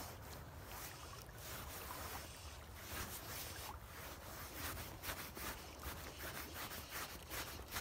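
Wind rumbling on the microphone over choppy river water lapping, a steady low noise with faint small knocks.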